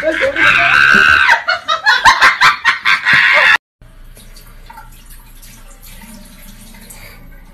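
A loud, shrill scream over a clatter of knocks and voices cuts off abruptly about three and a half seconds in. After it a faucet runs faintly into a sink.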